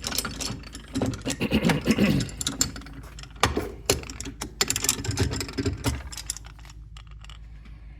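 Metal parts of a DeWalt DWS780 miter saw being handled as its removable hold-down clamp is worked: a run of clicks, knocks and rattles that thins out near the end.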